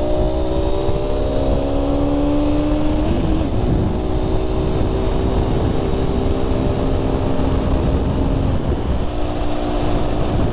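Aprilia RS 125's single-cylinder four-stroke engine under way, its revs rising for about three seconds until an upshift, then running at steady revs with a brief dip about nine seconds in. Wind rushes over the microphone.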